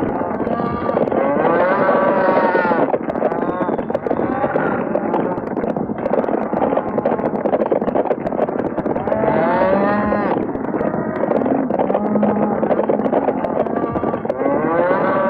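Cattle stampede: a herd of cattle bellowing over the dense, steady rumble of the running herd, with loud drawn-out moos about a second in, near the middle and near the end.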